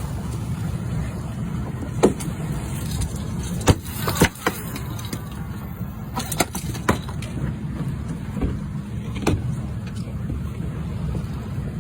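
Boat motor running steadily with a low hum, with a handful of sharp knocks and clatters scattered through it.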